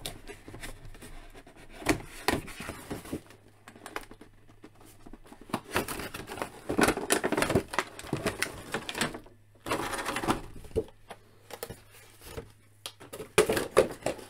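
A cardboard window box being opened by hand and its clear plastic blister tray pulled out: irregular rustling, scraping and crinkling of cardboard and thin plastic, with scattered sharp clicks, loudest in bursts about halfway through and again near the end.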